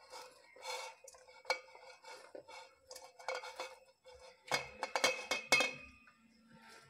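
Shredded cabbage scraped by hand off a stainless steel plate into a steel bowl: rustling cabbage and fingers scraping and tapping the metal, with a flurry of louder clinks and scrapes a little past halfway.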